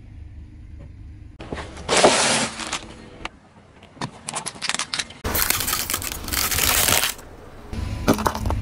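Car tyre rolling onto and crushing plastic objects, disposable lighters among them. A loud crunch comes about two seconds in, followed by a run of sharp cracks and snaps, then a noisy burst lasting over a second and another crunch near the end.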